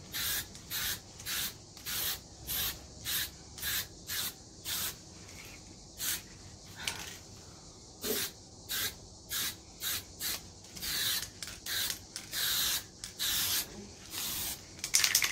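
Aerosol can of automotive spray paint spraying in short hissing bursts, about two a second, with a few longer sprays later on. Right at the end comes a quick rattle as the can is shaken.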